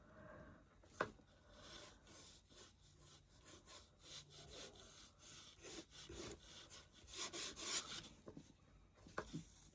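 Faint, irregular hand-rubbing strokes on a wooden cigar box as antique gold Rub 'n Buff wax is worked into its edges, with a light knock about a second in.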